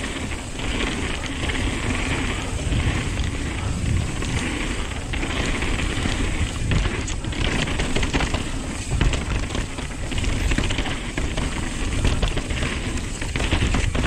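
Nukeproof Dissent 290 downhill mountain bike ridden fast down a dry dirt trail covered in fallen leaves: a steady rush of tyres over dirt and leaves, with frequent rattles and clicks from the bike over bumps. Wind rumbles on the microphone.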